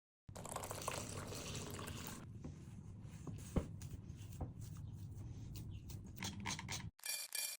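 Liquid being poured or stirred, a steady wet sound with a few sharp drip-like clicks. It stops abruptly near the end, and short separate bursts of sound follow.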